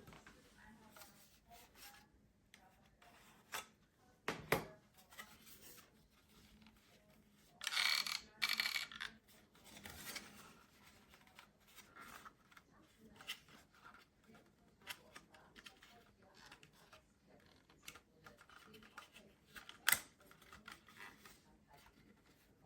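Handling noises: scattered clicks and knocks, with a loud burst of rustling, tearing noise about eight seconds in and a sharp click near the end.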